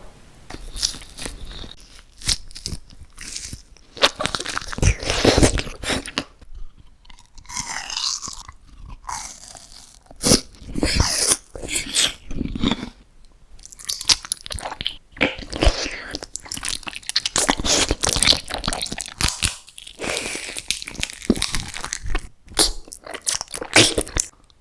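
Close-miked eating: a person biting into and chewing crunchy candy-like foods, with crisp, irregular crunches and chewing sounds and a few brief pauses.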